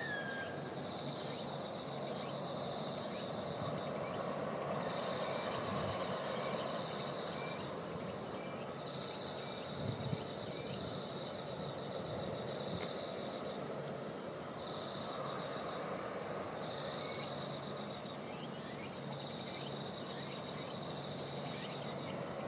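An insect trilling high in repeated spells of a second or two, over a steady distant rush from a Shinkansen train running on an elevated viaduct. A brief knock about ten seconds in.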